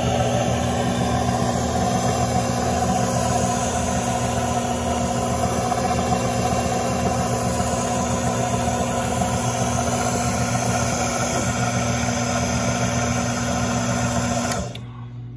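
Levin bench drill press running: its small electric motor hums steadily while the thin round belt and step pulleys turn the spindle. Near the end the sound drops sharply, leaving mostly a low hum.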